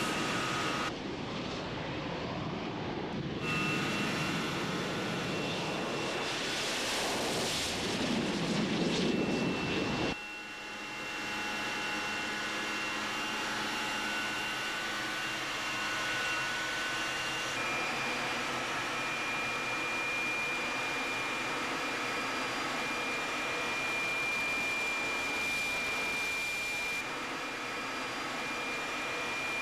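Harrier's Rolls-Royce Pegasus turbofan heard from the cockpit as the jet takes off and climbs away low. A loud rushing roar for about the first ten seconds drops suddenly to a steadier engine noise with a thin high whine.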